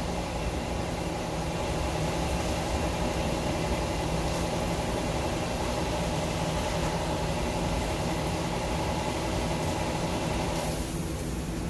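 Steady mechanical hum of a running motor or engine. About eleven seconds in it changes to a hissier sound.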